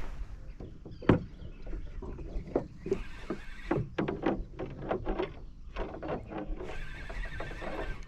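Gulls calling, a rapid series of short cries, with two brief stretches of hiss.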